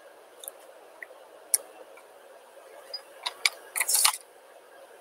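Scattered small clicks and taps, then a quick flurry of sharper clicks and a brief rattle about three and a half to four seconds in: objects being handled at a desk.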